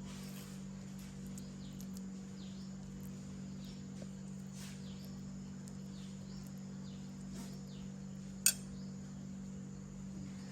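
A steady low hum with faint, short chirps scattered through it, and one sharp click about eight seconds in.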